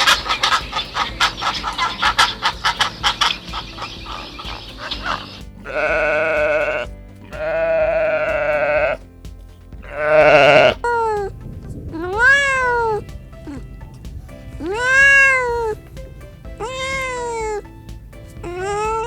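A rapid pulsed chattering call for about five seconds, then three wavering bleats from a goat or sheep. After that comes a series of about six rising-and-falling cat meows.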